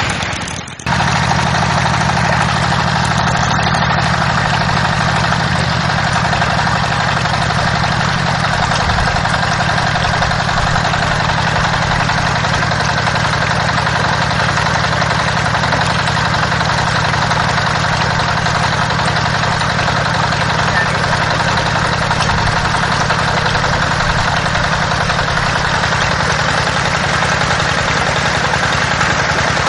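Small motor driving a mini water pump, running steadily with a low hum, while its spout pours a stream of water that splashes onto gravel. The sound breaks off briefly about half a second in.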